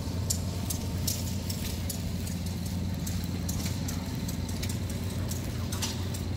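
An engine running steadily: a low, even hum with faint light ticks over it.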